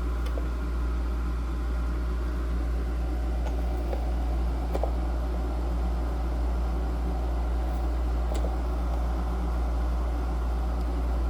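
Holmes Blizzard 9-inch desk fan running steadily with a low hum, its blade out of balance, which the owner suspects is warped.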